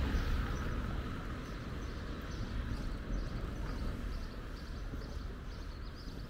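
Footsteps on a hard walkway, about two to three a second, over a low wind rumble.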